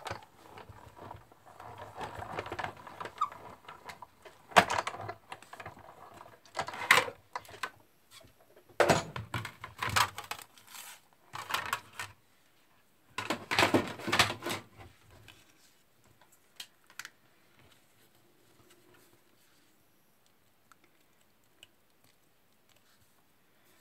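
Manual die-cutting machine being hand-cranked, the plate sandwich rolling through with a grinding rumble. Then come several loud clacks and clatters as the clear acrylic cutting plates and the thin metal die are taken apart and handled. Near the end there are only faint small ticks as tiny paper flowers are poked out of the die with a piercing tool.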